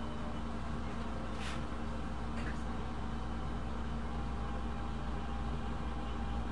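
Steady low hum of a running fan motor, with two faint short scratchy sounds about a second and a half and two and a half seconds in.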